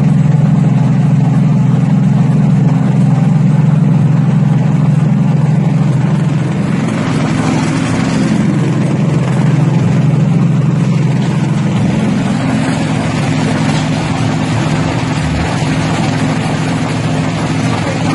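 Peanut-shelling machine running with a steady low drone. From about seven seconds in, a rough rattling hiss joins it as peanuts in their pods are fed into the hopper and shelled.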